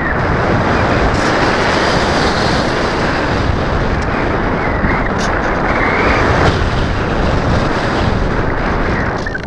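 Steady wind noise rushing over the onboard camera's microphone on a Multiplex EasyGlider Pro RC glider, gliding with its motor off.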